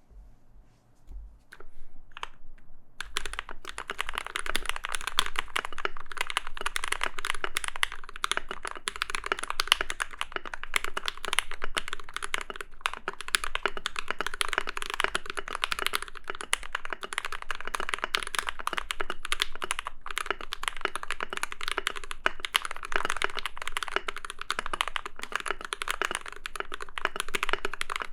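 Typing sound test on an Ikki68 Aurora custom mechanical keyboard with Gateron Hippo switches, Milkyway PBT keycaps, an aluminium plate and full dampening: a few single keystrokes, then continuous fast typing from about three seconds in. The keystrokes are muted and deep.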